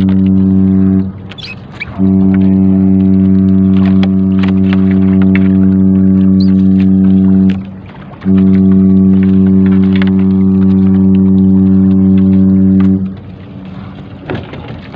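A loud, steady low-pitched hum on one unchanging pitch, cutting off abruptly three times: once about a second in, again past the middle, and for good near the end.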